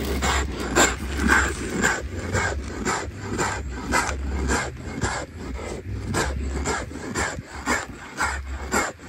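Hand grinding on a stone quern: a handstone scraped back and forth over a flat lower stone, grinding grain into flour, with one rasping stroke about every half second.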